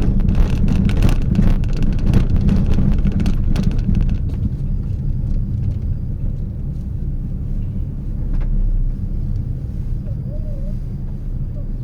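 Steady low rumble of a car driving, heard from inside, with a spell of crackling knocks and rattles in the first few seconds and a faint wavering tone near the end.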